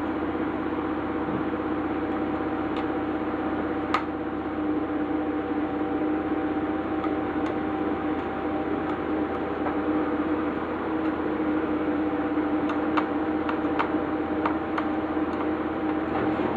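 Steady low hum with scattered light clicks: one sharp click about four seconds in, and a run of small ticks near the end.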